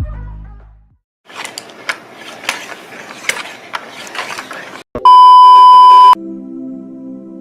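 Electronic music fades out, then comes a few seconds of crackling with irregular sharp clicks. About five seconds in, a loud steady beep tone sounds for about a second, and soft ambient music begins right after it.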